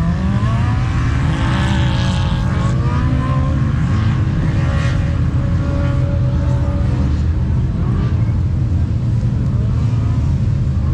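Several off-road vehicle engines revving over a heavy low rumble, their pitch rising and falling as they speed up and slow down.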